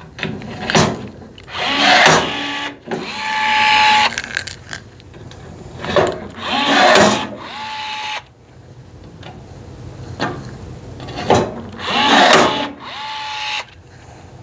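Milwaukee M12 cordless rivet gun popping three rivets, one after another about every five seconds. Each cycle is a couple of seconds of motor whir that ends in a brief steady whine.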